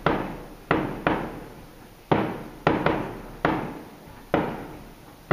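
Fireworks display: aerial shells going off in quick succession, about eight sharp bangs, each trailing off in a rolling echo.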